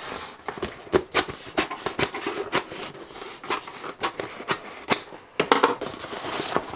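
Sheet of stiff Flexoid oil-resistant jointing (gasket) paper crackling and rustling as a piece is cut from the roll with scissors and handled: irregular sharp crinkles and snips.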